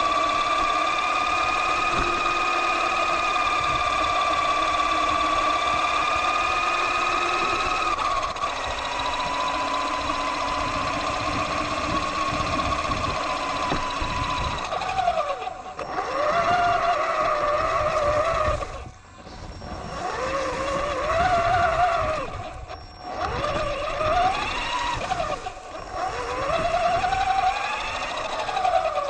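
Electric motor and gear whine of an Axial Yeti XL RC truck driving over concrete sidewalk, with rumble from the tyres, heard from a camera mounted on the truck. The whine holds a steady pitch at first. From about halfway it rises and falls with the throttle and drops out briefly twice.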